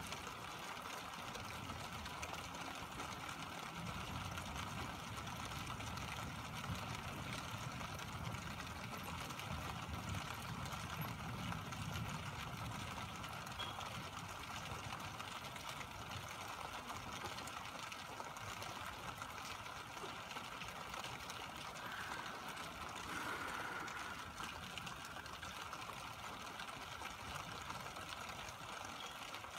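Steady rain falling, an even hiss without change.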